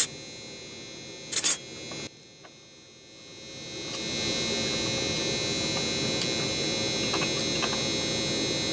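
A couple of sharp metal clanks, then a steady electric machine hum with a buzzing edge that swells in about three seconds in and holds.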